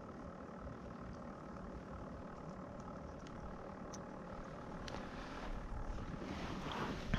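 A distant motor drones steadily with an even low hum. A few faint clicks sound as the bait is handled, and a louder rush of noise comes near the end.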